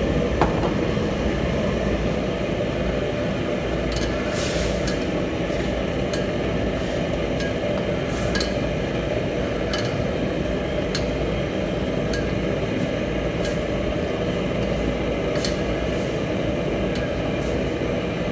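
Steady low roar of a commercial gas wok range. A metal ladle clinks and scrapes against a steel wok now and then as the chicken curry is stirred.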